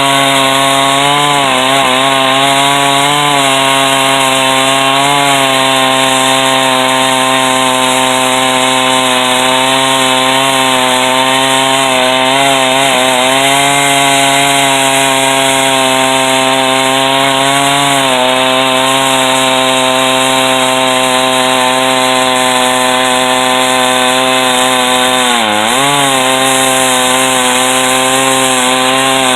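Two-stroke chainsaw running at full throttle in a chainsaw mill, ripping lengthwise through a white oak log. The engine pitch sags slightly now and then under the load and bogs down once near the end before picking back up.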